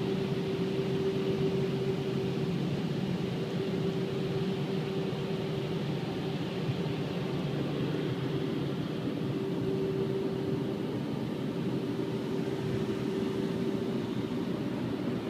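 Automatic car wash machine running steadily, a constant hum with hiss over it.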